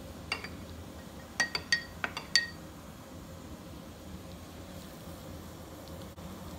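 Kitchenware clinking: about six quick, sharp metallic clinks in the first two and a half seconds, each ringing briefly, over a low steady hum.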